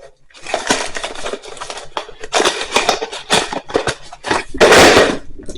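Handling noise: a run of rustling and sharp clicks, with a louder rustling burst shortly before the end.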